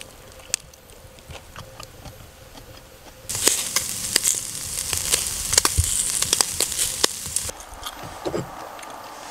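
Slices of Sendai wagyu beef sizzling and popping on a wire grill net. The sizzle starts abruptly about three seconds in and falls away about seven and a half seconds in; before it there are only a few faint clicks.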